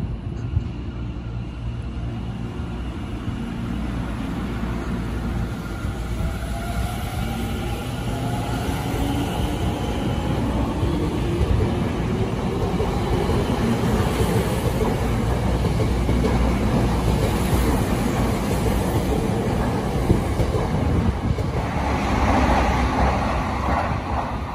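Tokyo Metro 10000-series electric train pulling out of a station: its traction motors whine, rising in pitch as it gathers speed, over a steady rumble of wheels on rail. Near the end the train noise swells into a louder rush.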